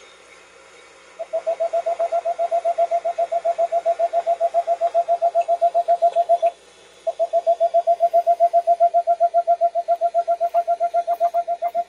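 Recorded boreal owl song played back on a call-playback survey: a long, rapid, even run of low hoots on one pitch. It starts about a second in, breaks off briefly after about six and a half seconds, then starts again.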